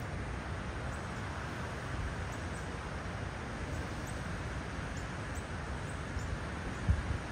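Outdoor wind after a storm: a steady rushing breeze with a low buffeting rumble on the microphone and leaves rustling. Faint high chirps come and go throughout, and there is a brief low bump near the end.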